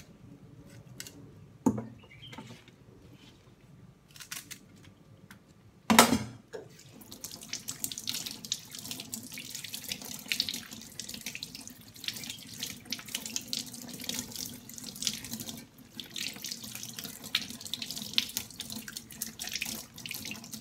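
A few sharp knocks at a kitchen sink, the loudest about six seconds in. Then the kitchen tap runs steadily, water splashing over the hands and spinach leaves being rinsed under the stream.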